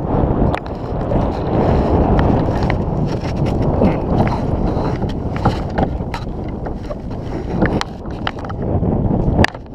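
Wind buffeting the microphone in a loud, steady rumble, with a few sharp knocks scattered through it.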